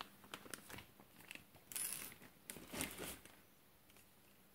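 Plastic packaging crinkling in several short bursts as a pack of ski dampening strips is handled and put down on a plastic sheet. It goes quiet in the last second or so.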